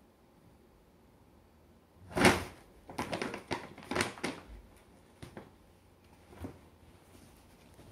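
A paper shopping bag rustling and crinkling as a Norwegian Forest cat moves inside it: a loud crinkle about two seconds in, a quick run of rustles over the next two seconds, then a couple of fainter rustles.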